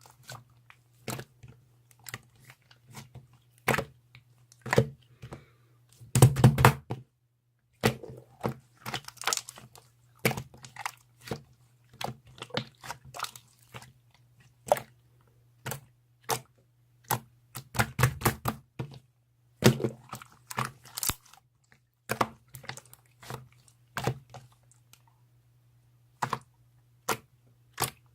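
Chewy jelly-type slime being squeezed and pressed by hand, giving irregular sharp clicks and pops with a few denser crackling clusters, over a faint steady low hum.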